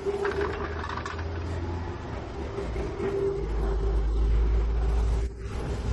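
Steady low machine hum of a tyre workshop with a few light clicks and knocks; the hum grows louder about three and a half seconds in and dips briefly near the end.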